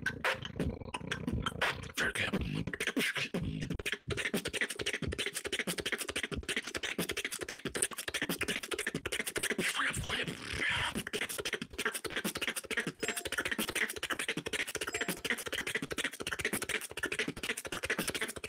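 Beatboxer performing a battle round: a fast, unbroken run of percussive mouth sounds, heard through TeamSpeak voice chat.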